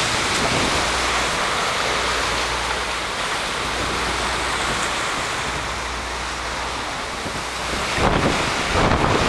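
Hurricane-strength wind rushing through palm trees and buffeting the microphone: a steady dense rush with a low rumble, and louder bursts near the end.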